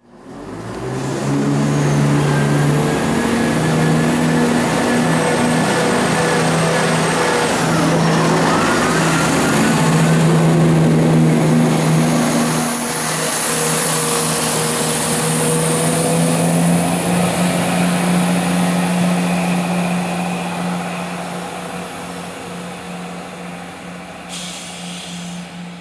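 Diesel engines of a Class 170 Turbostar diesel multiple unit running under power as it pulls away, a steady low drone with a whine that rises about eight seconds in. The sound fades over the last few seconds as the unit moves off.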